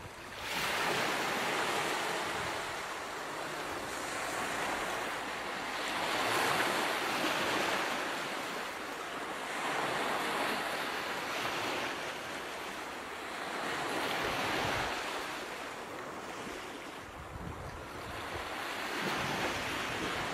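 Ocean surf: waves washing in and drawing back, the noise swelling and ebbing every few seconds.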